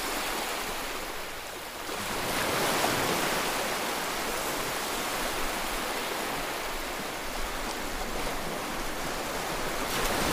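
Sea waves breaking and surf washing up a sandy beach: a steady rush that swells about two seconds in.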